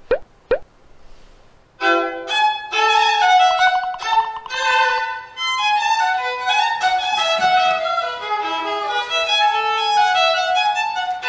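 A 1/8-size violin played solo. After two brief rising sweeps at the start, a fast melodic passage begins about two seconds in, with a quick run of rapidly repeated notes around the four-second mark.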